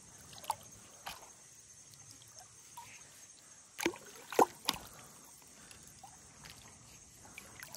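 A hand splashing and sloshing in shallow pond water among lotus stems while groping for a hooked fish. There are a few short splashes; the three loudest come between about four and five seconds in.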